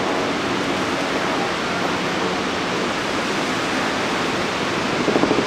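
Iguazu Falls' many cascades plunging into the river: a dense, steady rush of falling water with no let-up.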